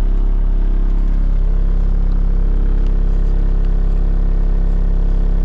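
Skid steer loader's engine running at a steady speed, loud, with a low, even hum.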